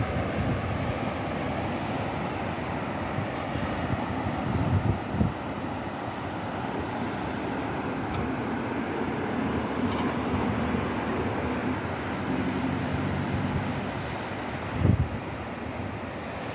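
Wind buffeting the microphone over a steady outdoor rumble, with a low engine hum in the middle stretch.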